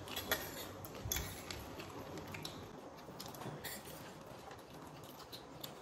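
Faint, scattered clicks and clinks of utensils against plates.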